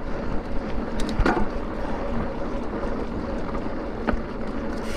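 Mountain bike riding over a dirt singletrack trail: steady wind rush on the microphone and tyre and frame rumble, with a few sharp knocks and rattles about a second in and again near four seconds.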